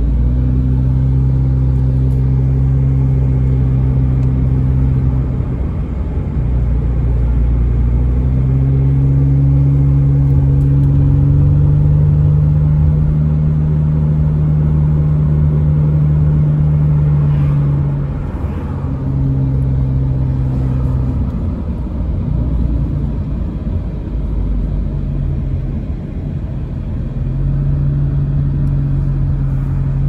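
Car engine hum and road rumble heard from inside a car climbing a mountain highway. The engine note holds for several seconds at a time, steps up in pitch as the car picks up speed, and falls away around eighteen seconds in as the driver eases off, coming back near the end.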